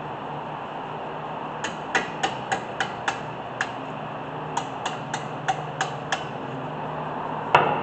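A hammer striking metal in two quick runs of about six or seven blows each, roughly three a second, then one harder blow with a short ring near the end.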